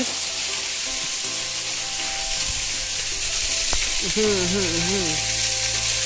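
Waterfall's falling water as a steady hiss, with background music playing softly underneath.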